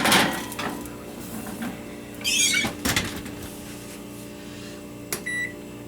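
Kitchen clatter and clunks, with a door or cupboard shutting, as the cake pan goes into the oven. Then, about five seconds in, short electronic keypad beeps start as the oven timer is set.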